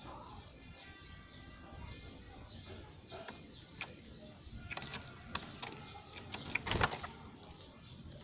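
Small birds chirping, with many quick, high chirps that fall in pitch, repeated throughout. From the middle to near the end there is a cluster of sharp clicks and knocks, the loudest about seven seconds in.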